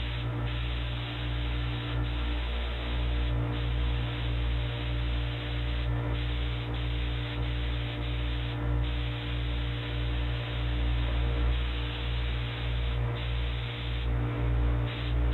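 Spray-painting gear running: a paint spray gun's even air hiss over the steady low hum of a motor. The hiss dips briefly several times, as if the gun's trigger is let off between passes.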